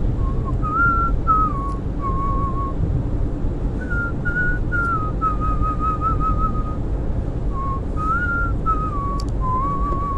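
A person whistling a tune in short phrases of a few wavering notes, over the steady road noise of a moving car.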